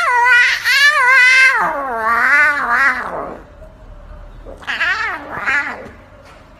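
Lion cub's juvenile roar: a long wavering cry that slides down in pitch over about three seconds, then a second, shorter wavering call about five seconds in.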